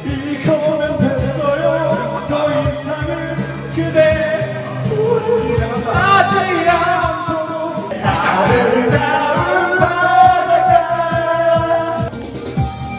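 A pop song with singing over a steady beat.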